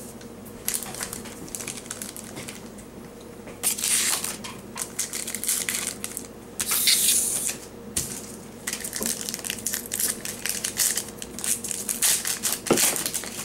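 Foil wrapper of a basketball card pack being torn open and crinkled, in two bursts of crackling about four and seven seconds in, with short clicks and rustles of the cards being handled in between.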